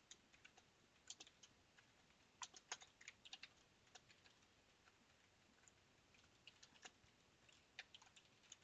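Faint typing on a computer keyboard: irregular runs of key clicks, with a lull of about two seconds midway.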